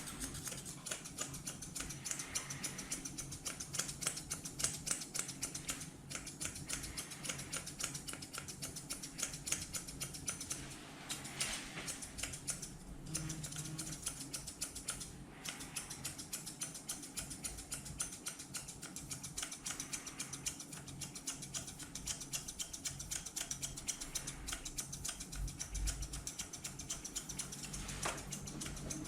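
Grooming scissors snipping through a Pomeranian's fur in quick, closely spaced cuts that run on without a break.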